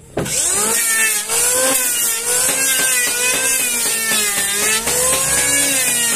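Electric hand planer starting up and cutting along a wooden plank. The motor comes up to speed about a quarter second in, then runs as a loud whine that wavers up and down in pitch as the blades bite, over a high hiss.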